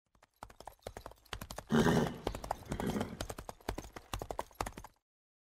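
Horse hooves clip-clopping in a quick run of hoofbeats, with a loud horse whinny about two seconds in; the sound stops abruptly about five seconds in.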